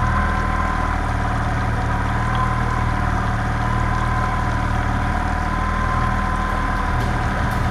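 Fishing boat's engine running steadily at trolling speed, an even hum with a steady higher whine above it.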